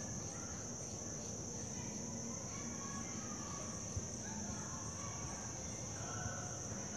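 Insects trilling in a continuous high-pitched drone, with one short tap about four seconds in.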